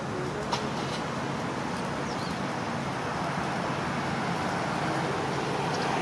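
Steady road traffic noise, with a few faint, short high calls from Japanese pied wagtails (white wagtails) gathering at their roost: one about half a second in, a couple around two seconds in, and one near the end.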